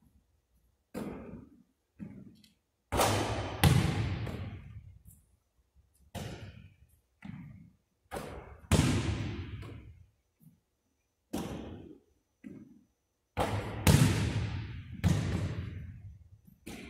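A basketball bouncing on a hardwood gym floor and striking the rim and backboard on shots, a string of irregular loud impacts a second or few apart, each ringing out in the gym's echo.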